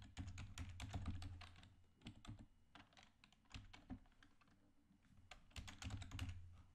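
Typing on a computer keyboard: quick runs of faint keystrokes in three bursts separated by short pauses.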